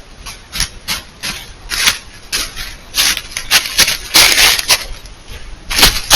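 A deer close to the trail camera making an irregular series of short, noisy bursts, some longer and louder about four seconds in and near the end.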